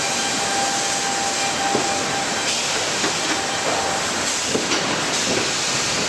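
Sawmill machinery running with a steady loud noise. A held whine stops a little over two seconds in, and a few short knocks come from timber moving on the steel roller conveyor.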